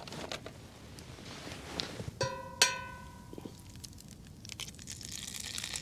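Two short metallic clinks with a brief ring about two seconds in, then a hiss that builds near the end as egg starts to sizzle in a hot frying pan.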